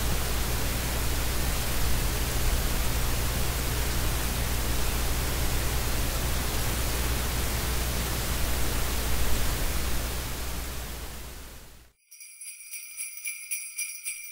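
Steady hiss with a low hum underneath, fading out and stopping about twelve seconds in. Near the end, sleigh bells start jingling in a quick, even rhythm.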